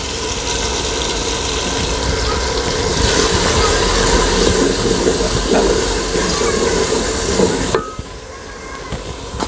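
Steady hissing sizzle of tomato-onion masala frying in a pot over a gas burner. About eight seconds in it drops off suddenly to a quieter level.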